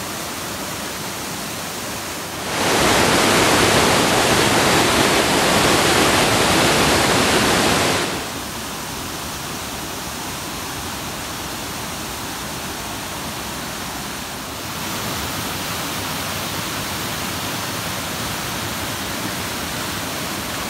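Waterfalls and cascading stream water rushing steadily. The level jumps in sudden steps, much louder for several seconds early on where the water falls close by, then dropping back and rising slightly again near the end.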